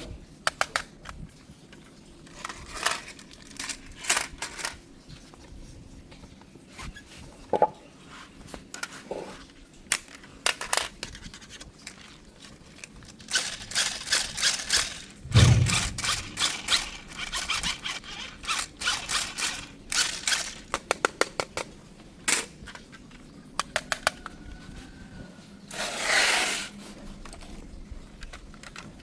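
Toy packaging being handled and opened: irregular clicks and knocks of cardboard and plastic, with scraping, tearing and rustling. A dense flurry of handling noise comes about halfway through, with one dull thump, and a longer scraping swish near the end.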